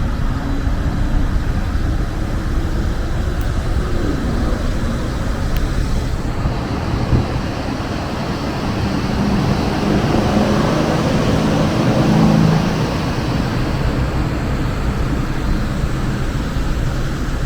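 Road traffic noise, with one vehicle passing louder about ten seconds in.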